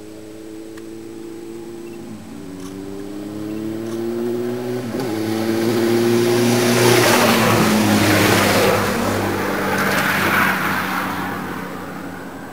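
Race escort motorcycle's engine approaching and passing close by. It grows steadily louder, is loudest a little past the middle with a second swell near ten seconds, then fades away.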